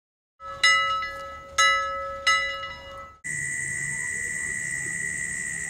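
A bell-like chime sound effect struck three times, each strike ringing and fading, over a steady low tone. About three seconds in it cuts to a steady high-pitched drone.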